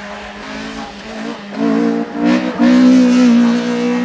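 Hillclimb race car engine under hard load as the car passes close by. It gets much louder about one and a half seconds in, breaks off twice briefly, then holds at its loudest.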